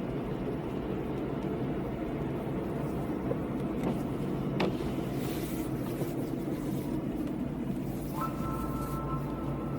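Car driving on a wet road: steady low road and engine noise, with a hiss of spray for a few seconds midway and a sharp click just before it. A steady high tone starts near the end.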